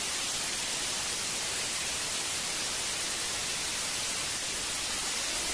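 TV static: a steady, even hiss, brightest in the treble.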